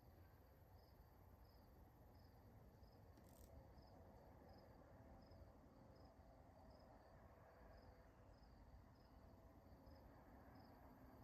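Near silence: a cricket chirping faintly and evenly, about three chirps every two seconds, over a faint low background hum.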